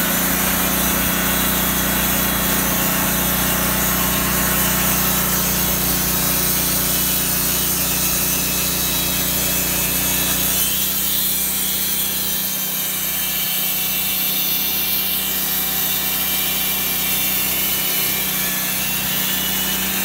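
Wood-Mizer portable band sawmill running, its band blade sawing through a squared log to cut 1x8 boards: a steady machine drone with the hiss of the cut. The lower part of the drone drops away about halfway through.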